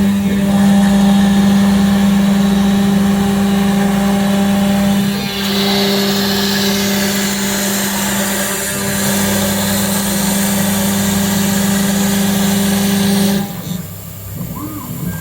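AX-1325 CNC router running, its spindle giving a steady high hum over a cutting hiss that gets brighter about five seconds in. Near the end the hum cuts off suddenly and the machine goes quieter.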